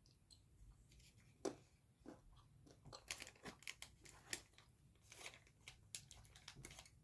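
Faint chewing of a white-chocolate-coated almond: a string of small, irregular crunches.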